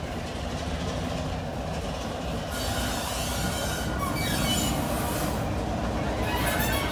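British Rail Class 33 diesel locomotive's Sulzer eight-cylinder engine running as it draws slowly nearer, growing louder. High wheel squeals start about three seconds in and fall in pitch, and sharp clicks of wheels over the rail joints come near the end.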